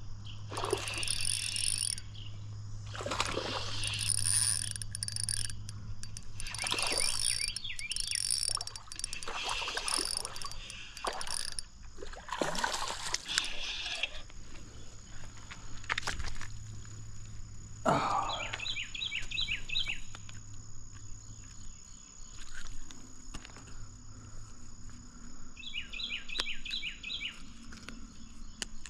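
Smallmouth bass being reeled in and landed on an ultralight spinning outfit: the reel working and the fish splashing come in a run of irregular noisy surges through the first half. Later, two short runs of fast, even insect chirping.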